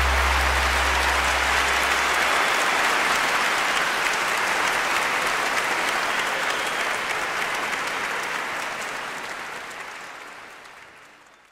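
Applause from many hands, a dense even clatter, with the last low notes of a song dying away in the first couple of seconds; the clapping fades out over the last few seconds.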